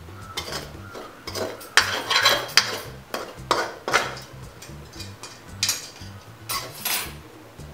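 A metal spoon scraping and clinking against a metal wok as cooked clam meat is scooped out, in a series of short scrapes, the loudest about two seconds in.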